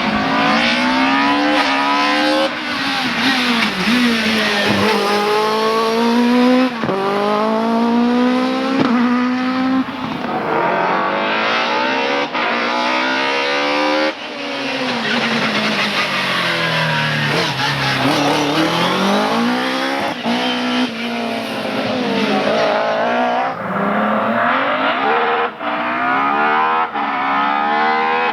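Race car engine accelerating hard through the gears, its pitch climbing steeply and dropping abruptly at each upshift. Partway through it falls in pitch as the car slows, then pulls up through the gears again.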